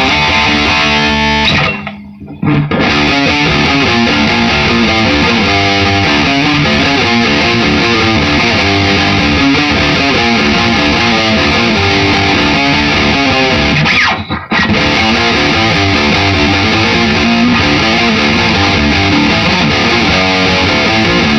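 Distorted electric guitar, a Les Paul, played loud through an amp head and speaker cabinet, riffing continuously. The playing drops out briefly about two seconds in and again about fourteen seconds in.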